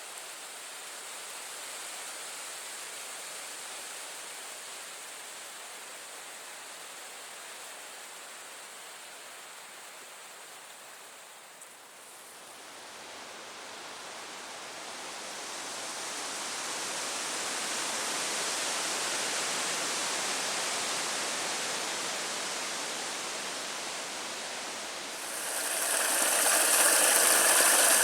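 Steady rushing outdoor noise that swells and fades. It changes abruptly about twelve seconds in and grows much louder near the end.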